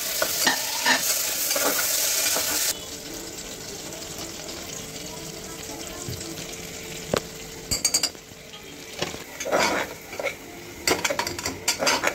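Chopped tomatoes and onions frying in hot oil in an aluminium pressure cooker, sizzling under a metal spatula that stirs and scrapes the pot. The sizzle is loud for the first couple of seconds, then drops suddenly to a softer sizzle, and quick scrapes and clicks of the spatula against the pot come in the second half.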